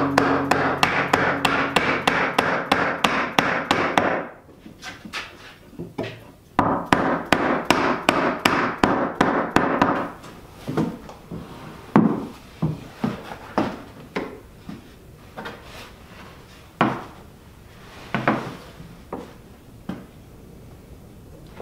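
Hammer striking a wooden block to drive glued-on new feet home onto old bench legs: two fast runs of rapid knocks, about four or five a second, then a few single knocks spaced out.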